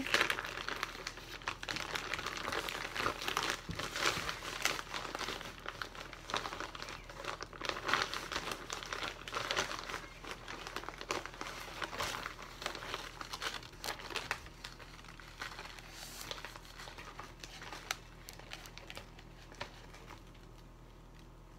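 Plastic bag of brown sugar crinkling and rustling as it is handled and scooped from, on and off, thinning out toward the end.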